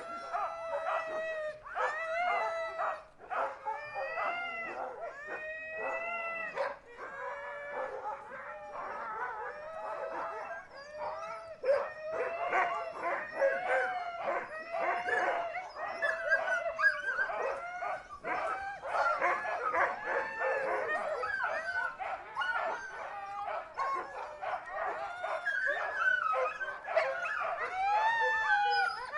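Several dogs howling and yelping together, their pitched calls overlapping and bending up and down without a break.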